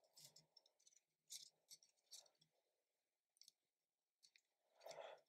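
Near silence with faint, scattered clicks and scratches, about seven of them, the loudest near the end: hands handling 3D-printer filament and the plastic extruder as the filament is pulled through.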